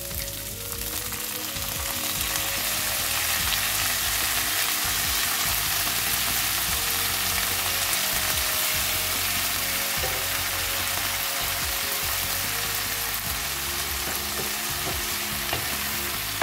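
Fried zucchini slices sizzling in hot olive oil in a frying pan. The hiss swells about two seconds in as vinegar is poured into the hot fat, and a wooden spoon stirs the pan with a few light knocks near the end.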